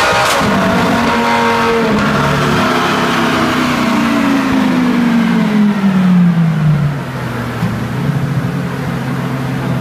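Lamborghini Gallardo V10 on a chassis dyno coming off a full-throttle pull: after a sharp crack about a third of a second in, the revs fall steadily for about seven seconds and then settle into a steady idle. It is loud throughout.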